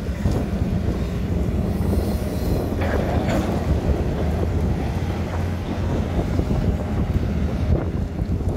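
Tata Hitachi Zaxis 220 excavator's diesel engine running steadily under load while the bucket digs into stony earth, with a few scrapes and knocks of soil and stones around three seconds in.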